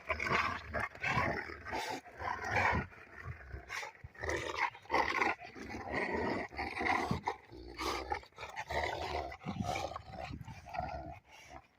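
Canine growling: a low, rough growl that comes in irregular short spells with brief gaps.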